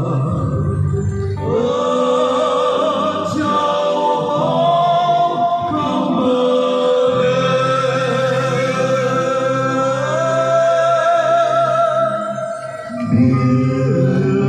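Slow Christmas carol music: a melody of long held, wavering notes over a low accompaniment. The level dips briefly near the end.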